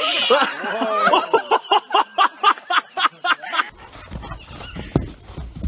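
A woman laughing and squealing in a quick run of high-pitched pulses, about six a second, that cuts off abruptly about three and a half seconds in. Then comes a low rumble of wind on the microphone with a sharp thud about five seconds in.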